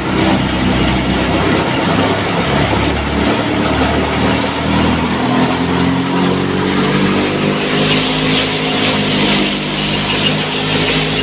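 Wheat thresher running under load: a steady, loud machine drone with a constant rushing hiss from the threshing drum and grain. The hiss grows louder about eight seconds in.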